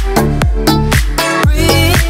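Electronic dance background music with a steady, fast drum beat under held synth tones; a wavering melody line comes in near the end.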